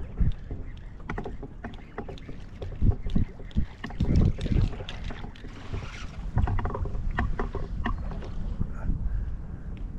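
Water slapping and lapping against a plastic fishing kayak's hull, with wind buffeting the microphone and scattered knocks against the boat.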